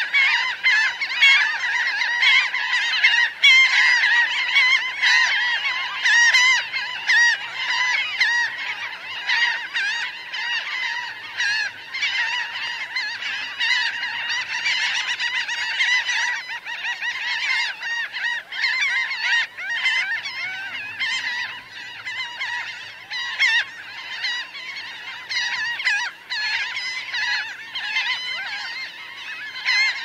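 A large flock of laughing gulls calling close up: many birds at once, dense overlapping calls with no break.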